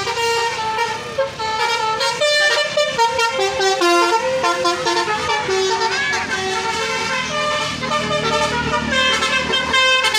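Bus telolet horn, a multi-tone air horn set, playing a melody of stepped notes, several sounding together at times. A low rumble sits under it in the second half.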